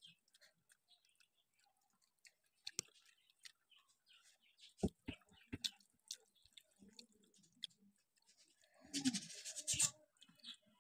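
Quiet eating sounds: fingers mixing and scooping rice on steel plates, with chewing and scattered soft clicks. A short, louder burst of sound comes about nine seconds in.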